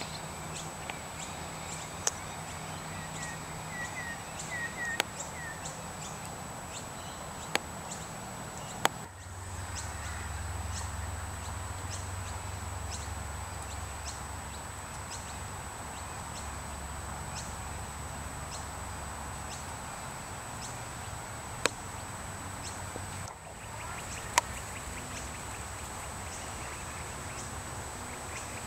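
Outdoor background ambience: a steady hiss with a constant thin high tone, scattered sharp clicks, and a few short bird chirps about three to five seconds in. A low hum joins at about nine seconds and drops out at about twenty-three.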